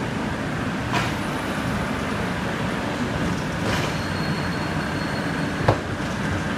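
Textile screen-printing machine running with a steady mechanical rumble as the printed fabric feeds through, with three short clanks, the loudest near the end.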